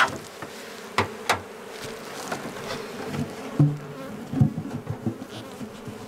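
Honeybees buzzing around an open hive, a steady hum, with several sharp knocks as the hive is handled and its galvanized metal roof is set back on, the loudest about three and a half seconds in.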